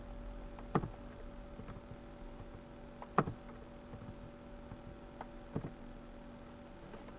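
Computer keyboard keys pressed now and then as commands are typed, with two louder key strikes about a second and three seconds in, over a faint steady hum.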